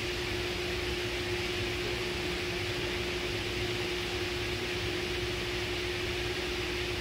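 Steady machine hum and hiss with one constant tone, unchanging throughout.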